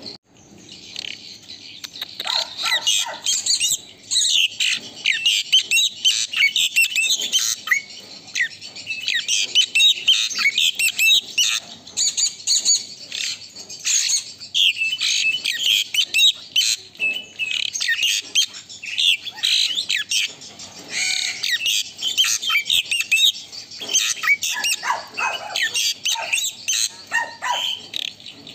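Asian pied starling (jalak suren) singing almost without a break: a fast, varied stream of high chirps and whistles.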